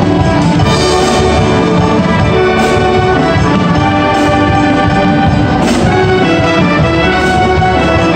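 Military concert band of brass and saxophones playing held chords, with a sharp percussion accent twice, about three seconds apart.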